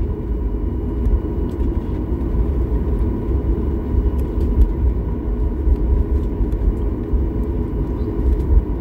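Jet airliner cabin noise while taxiing: a steady low engine rumble with a thin steady whine above it, heard from inside the cabin.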